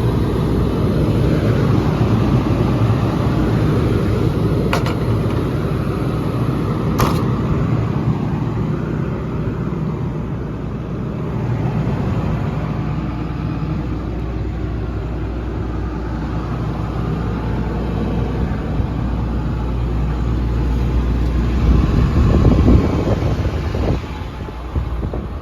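Cummins diesel engine of an XCMG XE360U excavator running steadily, with two sharp clicks about five and seven seconds in.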